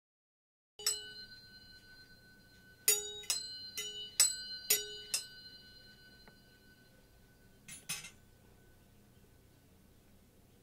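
Metal spoons struck and ringing with a bright, bell-like tone that dies away slowly. There are about six strikes in quick succession, then two more a few seconds later.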